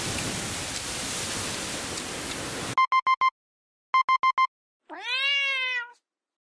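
Wind blowing on the microphone, cut off abruptly just under three seconds in. Then two quick runs of four electronic beeps, like a digital alarm clock, followed by a single cat meow about a second long that rises and then falls in pitch.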